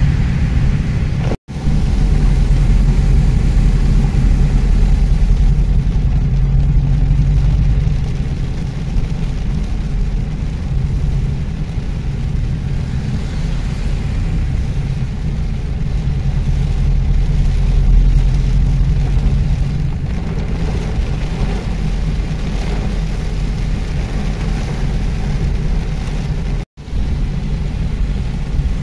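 Steady low rumble of a car driving on a wet road in the rain, heard from inside the cabin: engine and tyre noise with rain hiss. The sound cuts out for an instant twice, about a second and a half in and near the end.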